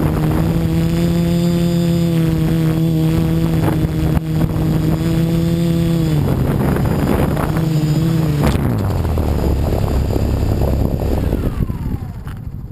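Electric motors and propellers of an F450 quadcopter, heard from the onboard camera as a steady pitched hum with wind noise. The pitch steps down about six seconds in and again about two seconds later as the throttle comes off for landing. A falling whine follows near the end as the motors spin down on the ground.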